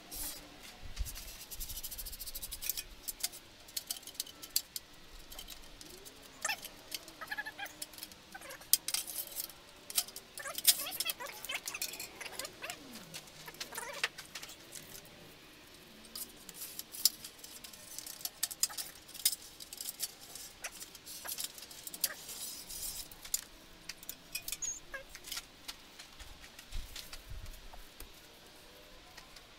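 Light metallic clicks and clinks of hand tools and engine parts being handled on an engine under repair, coming at irregular intervals.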